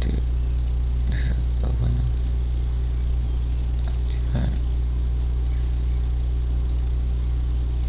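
Steady low hum with a constant high-pitched whine, a background noise that runs unchanged, with a couple of faint murmurs about one and four seconds in.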